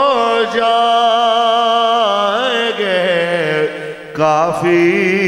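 A man's voice singing a naat, drawing out long, ornamented notes with a wavering vibrato, amplified through a handheld microphone. The voice breaks off briefly about four seconds in and then picks up again.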